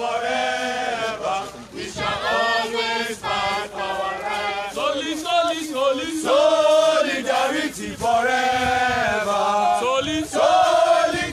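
A group of students chanting a protest song in unison, in sung phrases of a couple of seconds each with short breaks between them.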